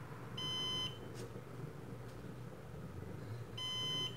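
Synology NAS alarm beeping: two high, steady beeps about half a second long and a little over three seconds apart, the warning that its SSD cache has gone degraded after the drive swap.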